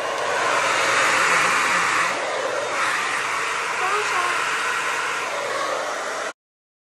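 Hair dryer with a diffuser attachment running with a steady rushing blow. The sound cuts off suddenly near the end.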